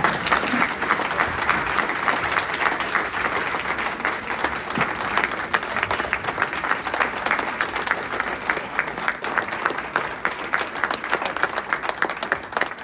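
Audience applause: a roomful of people clapping steadily, dying away at the very end.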